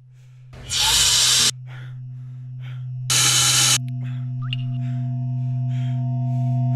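Soundtrack drone: a steady low tone that slowly grows louder, cut through by two loud bursts of hiss, each under a second long, about a second in and about three seconds in.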